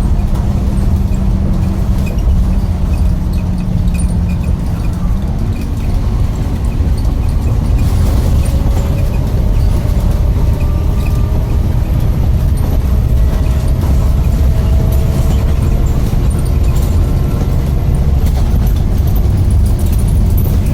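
Bus engine and drivetrain running under way, heard on board as a heavy low rumble. A steady whine steps up in pitch about five seconds in, and from about eight seconds several whines climb slowly as the bus picks up speed.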